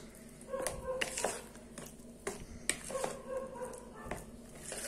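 Thick semolina batter being stirred with a silicone spatula in a plastic bowl: a short squeak and wet scrape with each stroke, about once a second.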